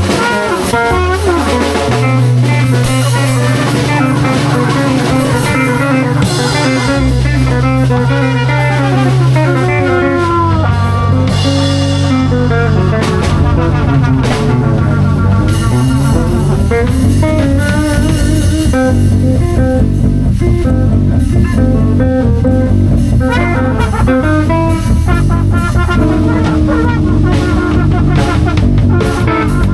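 Live band improvising with electric guitar, bass and drum kit, in a jazz-blues vein.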